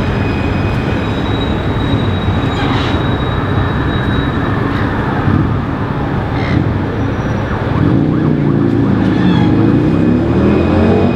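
Alstom Citadis C-class tram standing at a stop, with a steady background din and faint steady high-pitched tones; about eight seconds in its traction motors start and their whine rises in pitch as it pulls away.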